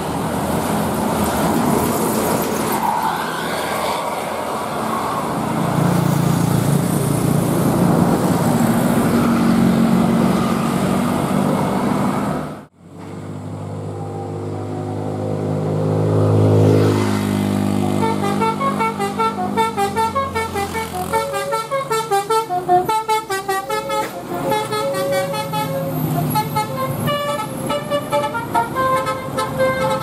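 Road traffic and a passing tour bus. After a sudden break, a bus's Basuri telolet horn plays a fast tune of short notes hopping between pitches through the second half.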